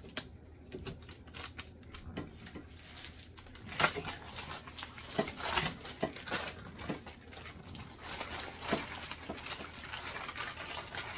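Plastic food packaging crinkling and rustling as deli packs are handled, with small knocks of items being set down.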